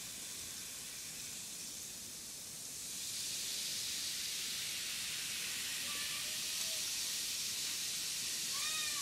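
Baking soda and vinegar fizzing in a homemade model volcano: a steady hiss of bubbling that grows louder about three seconds in and then holds, as the chemical reaction foams up.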